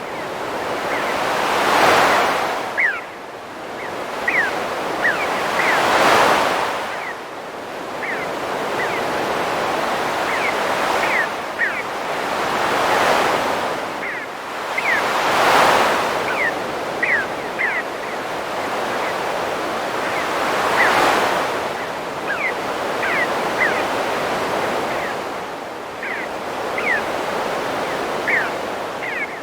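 Ocean waves breaking and washing on a shore, swelling and falling back every few seconds, with birds giving short, high chirps throughout.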